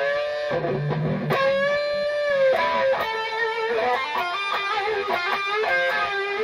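Electric guitar playing a single-note lead phrase, with notes bent up in pitch and held with vibrato, then quicker runs of notes.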